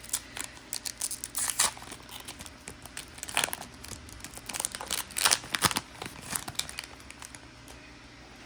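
Foil wrapper of a Pokémon TCG booster pack crinkling and tearing as it is opened: a string of sharp, irregular crackles that die down near the end.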